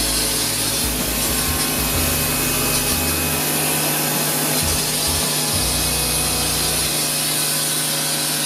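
Pressure washer running steadily, a hum under the hiss of water spraying from the foam-cannon bottle on its lance.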